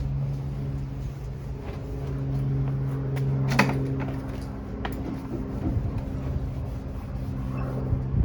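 Steady low mechanical hum with a few sharp clicks or knocks, the loudest about three and a half seconds in.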